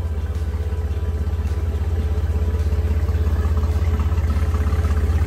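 Freshly rebuilt Mercruiser 4.3-litre MPI V6 marine engine idling steadily at about 655 rpm, with an even, fast pulse.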